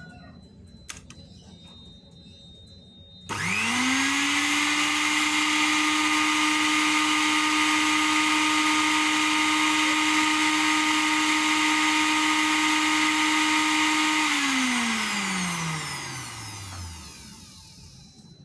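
Miyako blender's motor switched on about three seconds in, spinning up quickly to a steady high whine, running for about ten seconds, then switched off and winding down with falling pitch. A test run showing the blender works again now that the loose screw on its switch has been tightened.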